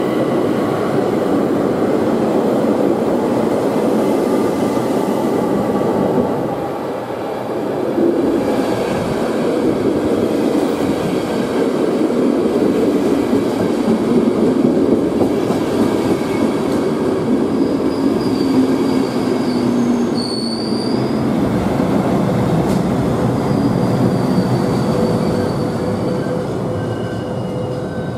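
An ÖBB class 4024 electric multiple unit runs along the platform. After a short lull about six seconds in, a regional express of double-deck coaches, pushed by a class 1144 electric locomotive at the rear, rolls past with a steady rumble of wheels on rails. High wheel squeals come about two-thirds of the way through.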